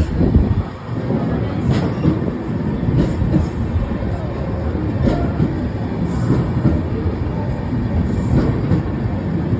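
Kovai Express passenger train running on the track: a steady, loud rumble of wheels on rail with scattered clanks every second or two.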